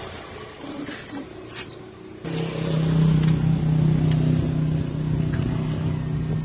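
A few light clicks, then an engine starts up abruptly about two seconds in and keeps running steadily with a low hum.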